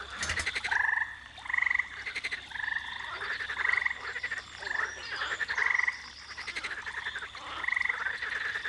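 Frogs croaking in a chorus: short trilled croaks follow one another about once a second, overlapping, with a faint steady high tone underneath.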